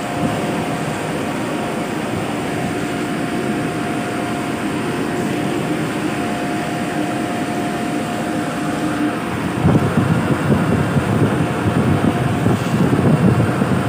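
Steady machinery hum of a shipboard incinerator's blower, with two steady tones. From about nine and a half seconds in, louder rough rustling and handling noise close to the microphone comes over it as plastic garbage bags are pushed in.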